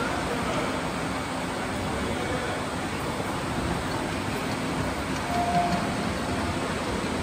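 Ride-on miniature railway trains rolling along the track with a steady rumbling noise, and a brief high-pitched tone about five seconds in.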